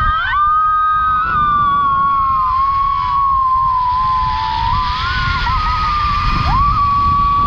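Zipline trolley pulleys running fast down the steel cable, giving a steady, slightly wavering high whine over the rumble of wind on the microphone.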